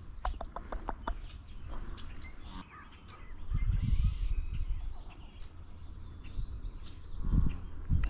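Marsh ambience with songbirds chirping faintly and a quick run of about eight clicks in the first second. A low rumble on the microphone comes twice, the first a few seconds in and the second near the end.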